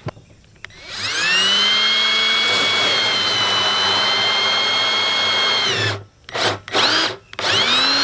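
Cordless drill turning a 1 1/4 inch hole saw on a plastic barrel. It spins up about a second in, runs at a steady speed for about five seconds and winds down, then gives three or four short trigger bursts.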